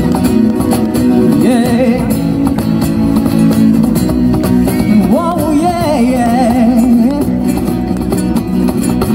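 Live band music: the instrumental opening of a song, guitar-led, with a wavering melody line over steady chords.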